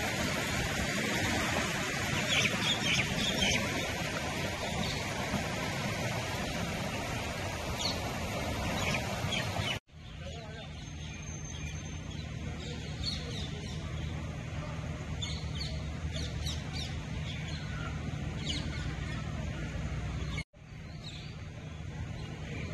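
Swollen, fast-flowing river rushing as a steady dense noise, with birds chirping over it. About ten seconds in it cuts to a quieter outdoor ambience: birds chirping over a low steady hum.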